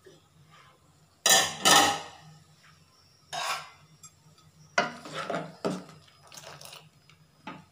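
Stainless steel pot lid clanking twice with a metallic ring as it is lifted off and set down, about a second and a half in, then a steel ladle clinking and scraping against the steel pot while stirring.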